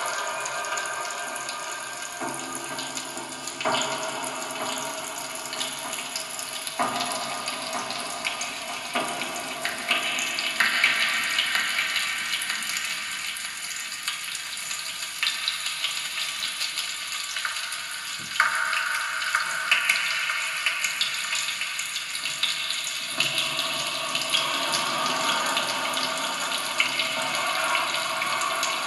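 Experimental ambient sound piece built from kitchen sounds (popping candy, a knife, a straw, altered kitchen utensils): a dense hissing, crackling wash like running water. Its layers switch abruptly every few seconds.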